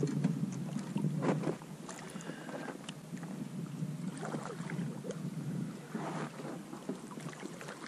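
Rowing a small PVC inflatable boat: oars dipping with a few irregular splashes about a second, four and six seconds in, over water lapping at the hull and wind on the microphone.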